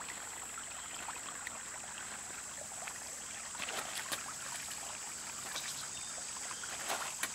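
Faint light splashes of a freshwater clam shell skipped across a calm river, about four seconds in, over a steady high-pitched hiss of outdoor background.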